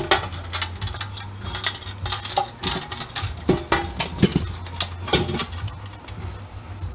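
Hand tools and loose metal parts clinking and knocking irregularly as a machine is taken apart, over a steady low hum.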